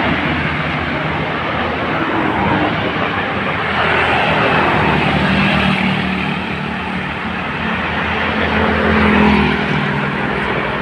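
A vehicle engine running steadily under a continuous rush of wind and road noise, its low hum rising a little about halfway through.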